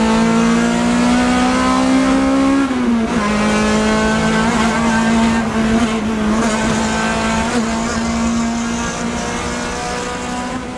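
Car engine at high revs heard from inside the cabin, climbing slowly, then dropping sharply about three seconds in as it shifts up a gear and pulling on steadily. It gets gradually quieter near the end.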